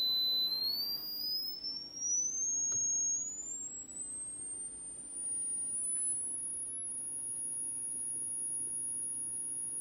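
Pure tone from a bare loudspeaker driven by a function generator, rising in small steps as the frequency dial is turned, from about 4,000 to about 10,000 cycles per second. It reaches the top a little past halfway and holds there as a steady high whine.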